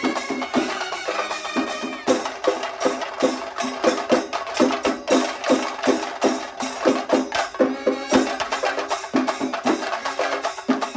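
Kerala band-set fusion: brass band instruments playing a film-song melody over fast, steady chenda drumming from a shingari melam group.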